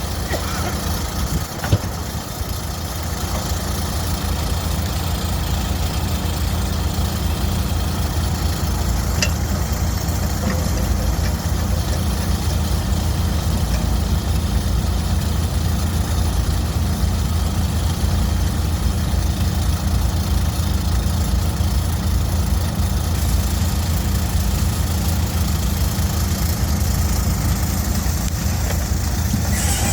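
2016 Terramite T7 compact loader/backhoe engine idling steadily, with one sharp click about two seconds in.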